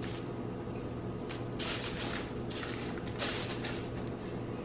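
Dried chiles being set down on aluminium foil by hand: several short, light crinkles and dry rustles, over a faint steady low hum.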